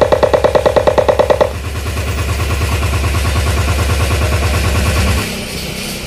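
Loud, bass-heavy test music played through the speakers under test, made of rapid repeating beats. About a second and a half in, the stuttering mid-range pulse gives way to a deeper, throbbing bass pulse. That bass cuts off about five seconds in and the sound drops to a lower level.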